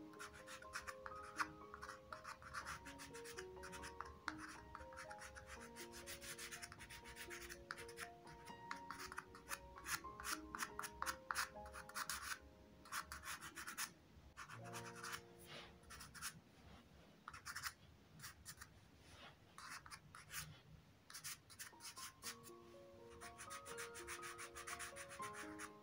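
A soft pastel stick scraping and rubbing across textured cardboard in quick short strokes. Quiet background music with slow held notes plays underneath, dropping out for a couple of seconds midway.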